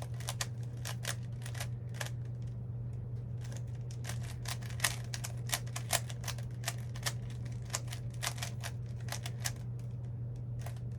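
Plastic Rubik's-type puzzle cube being turned quickly by hand: a rapid, irregular run of sharp clicks as the layers snap round, over a steady low hum.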